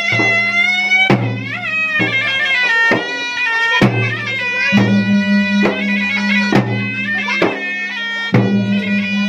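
Traditional Makassarese gendang drum music: sharp drum strokes about once a second under a shrill reed wind instrument playing a wavering melody over a steady drone.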